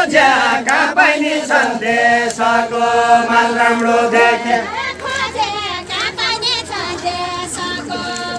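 A group of men singing a deuda folk song together, unaccompanied, in long held notes that waver at the ends of phrases.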